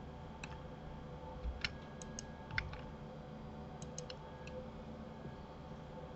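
Computer mouse and keyboard clicks while working in 3D software: a scattering of sharp single clicks and quick pairs over faint steady background noise.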